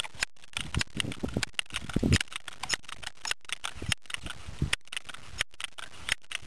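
Irregular small clicks and light knocks from a Crosman 1377 pump pellet pistol being handled between shots, the strongest knock about two seconds in.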